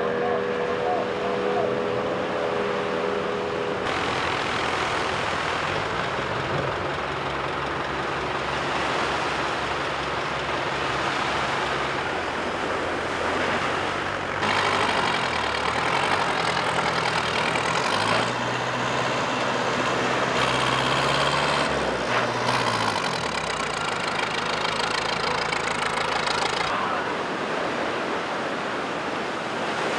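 Ski-boat outboard motors running under the rush of surf and spray, the engine note shifting at several abrupt cuts. For several seconds in the middle, a high whine with several tones sits on top.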